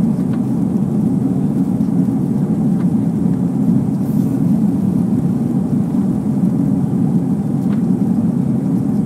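Low, steady rumble of a four-engine Airbus A340-300's CFM56 jet engines as the airliner climbs away after take-off.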